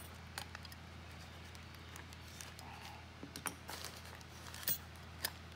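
Light handling noises from a toy-train locomotive's plastic truck and frame being moved about on bubble wrap: scattered small clicks and crinkles, the sharpest a little before the end, over a steady low hum.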